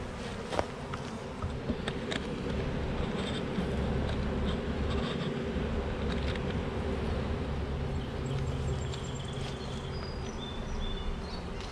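Honeybees buzzing in a steady hum around an open hive, just shaken in from a package, with a low rumble underneath.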